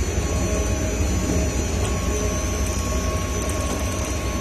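300-litre explosion-proof double sigma-blade mixer running, its twin blades and bottom extrusion screw turning in reverse: a steady low drone with a faint steady high tone above it.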